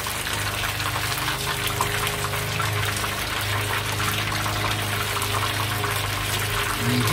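Battered squid rings deep-frying in hot oil, a steady dense sizzle and crackle, with a steady low hum underneath.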